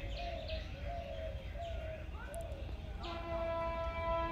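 Birds chirping and calling. About three seconds in, a distant train horn sounds one steady blast of over a second.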